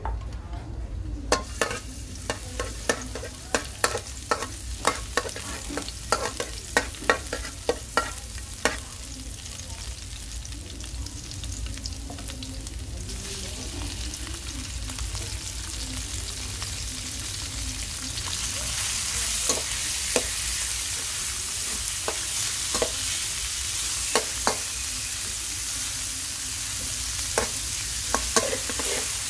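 Minced garlic sizzling in oil in a metal wok, with many sharp clicks of a spatula scraping and tapping the pan. About thirteen seconds in, sliced beef goes in and the sizzle gets louder, with further occasional spatula clicks as it is stirred.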